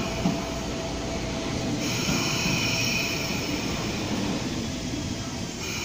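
Hong Kong MTR Mid-Life Refurbishment (Metro-Cammell) electric train pulling out along the platform: the deep growl of its nose-suspended traction motors over the rumble of wheels on rail. A higher hiss joins from about two seconds in.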